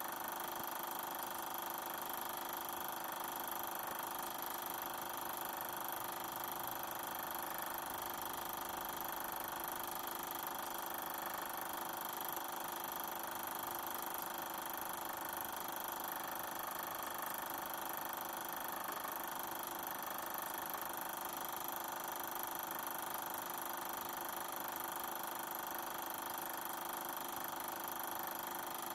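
Super 8 film projector running with a steady mechanical whir made up of several even tones, showing the film silent with no soundtrack heard.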